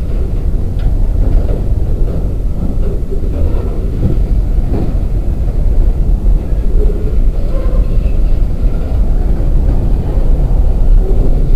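Empty coal cars of a freight train rolling past: a loud, steady rumble of steel wheels on the rails, with a few faint squeals and knocks.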